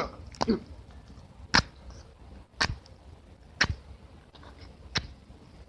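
Matches being struck on the box, four or five short sharp scrapes about a second apart, failing to catch.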